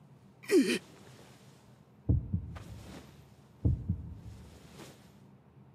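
Cartoon heartbeat sound effect: two slow, deep double thuds (lub-dub), about a second and a half apart. A short, sharp vocal sound comes just before them, about half a second in.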